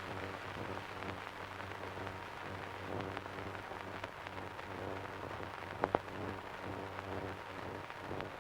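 Faint crackling hiss over a low steady hum, with scattered light ticks and two small clicks close together about six seconds in.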